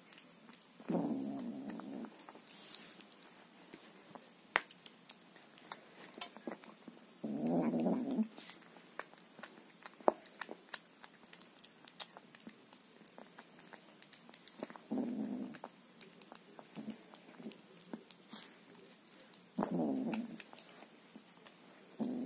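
Ginger kitten eating from a plastic bowl: a scatter of small chewing and crunching clicks throughout, with a short low cat vocalization about every five seconds.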